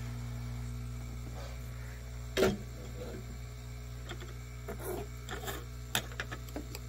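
Steady low electrical hum, with a knock about two and a half seconds in as the hot air rework handpiece is put down. Then small clicks and light scraping as a pocketknife blade works at softened silicone adhesive on a circuit board.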